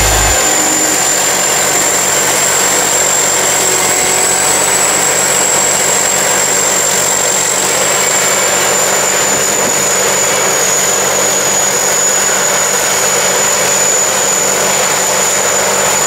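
Tracked rice combine harvester running under load as it cuts rice: a steady engine and machinery noise with a thin high-pitched whine over it.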